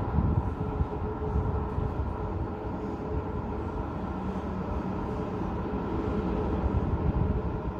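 Steady hum and rumble of city road traffic heard from a high-rise window, with a low engine drone rising out of it about halfway through.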